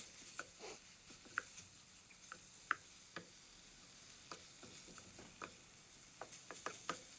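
Pork frying in oil and red curry paste in a pan: a steady faint sizzle with scattered sharp pops and crackles.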